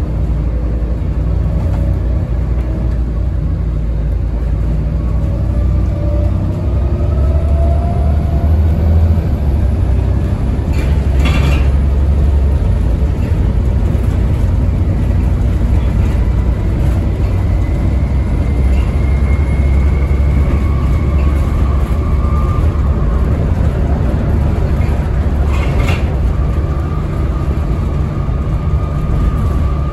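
Interior of a Volvo B7TL double-decker bus under way: the diesel engine's steady low rumble with drivetrain whines that rise slowly in pitch. Two sharp rattling knocks come through, about a third of the way in and again near the end.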